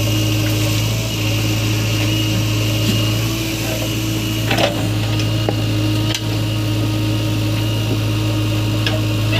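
JCB 3DX backhoe loader's diesel engine running steadily under load as the backhoe digs and loads soil, with two short sharp knocks from the machine partway through.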